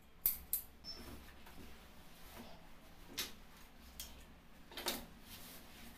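Tailor's shears, ruler and shirt cloth being handled on a cutting table: a few scattered sharp clicks and knocks with soft rustling of the fabric between them.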